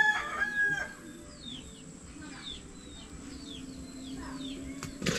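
A rooster's crow trailing off in the first second, then a small bird calling with short, high, downward-sliding notes about twice a second.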